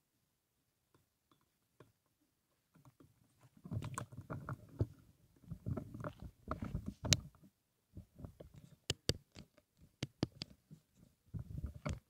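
Footsteps crunching through dry fallen leaves on a gravel path. They start about three to four seconds in and come in uneven clusters of crackling, with sharp snaps and clicks in between.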